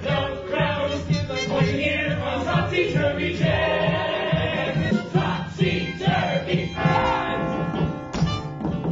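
Musical-theatre ensemble chorus singing with an instrumental accompaniment that keeps a steady beat.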